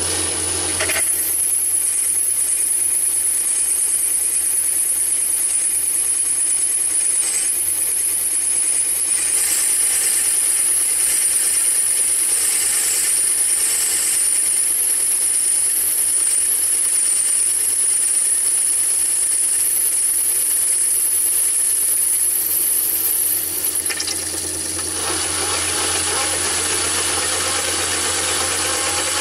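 Myford ML7 lathe running with a boring head in the spindle, its single-point cutter boring into an acetal block. A high, wavering whine runs through most of the cut and stops about 24 seconds in, while the lathe keeps running.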